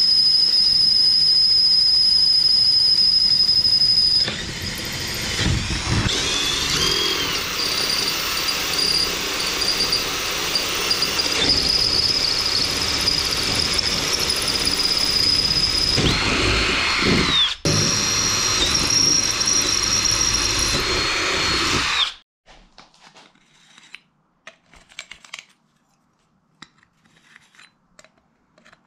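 Cordless drill boring through stacked aluminium aircraft spar web and attachment brackets with a twist bit, the bit squealing in a high steady pitch as it cuts. The drill stops briefly once, then stops for good about three quarters of the way through, leaving only faint handling clicks.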